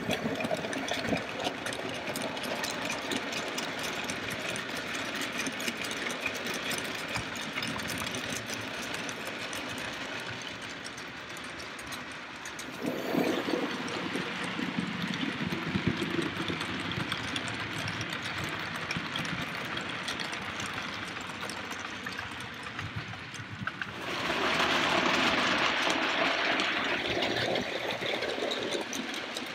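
OO gauge model trains running: the whirr of the locomotives' small electric motors with a fine clatter of wheels over the track. It grows louder twice, about halfway through and again near the end, as a train passes close by.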